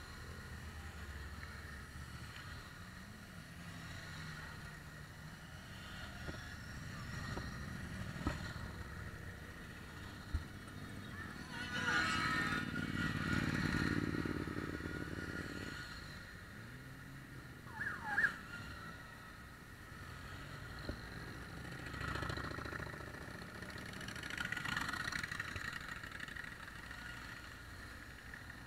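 A procession of large touring motorcycles riding past one after another at low revs, the engine sound swelling each time a bike passes close. A brief, sharp, high sliding sound stands out about two-thirds of the way through.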